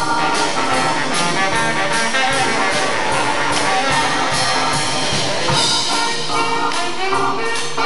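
Live jazz band playing a swing tune: baritone saxophone, sousaphone and other horns over a drum kit, with a steady beat from the drums.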